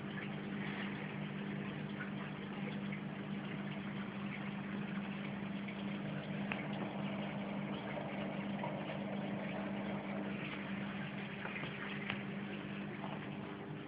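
Reef aquarium equipment running: a steady electric pump hum over a constant wash of moving, trickling water.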